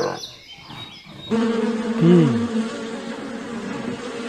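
Bee buzzing steadily, starting about a second in, after the fading end of a bear's growl.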